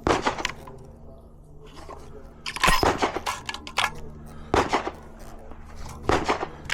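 Gunshots at a shooting range: four sharp shots about a second and a half to two and a half seconds apart, each with a short echo.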